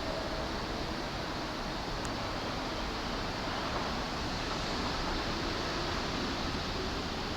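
Steady rumble and hiss of railway station platform ambience, even throughout with no distinct events.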